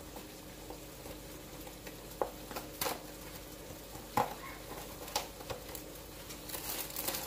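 A taco kit package being opened and handled: scattered light clicks and taps, then denser crinkling of the plastic near the end.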